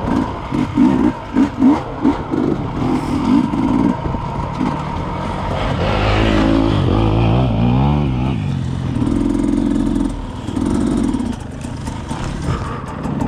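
Two-stroke enduro dirt bike engine under the rider: short bursts of throttle in the first few seconds, then revving up and down about halfway through, then running steadily at lower revs as the bike slows to a stop.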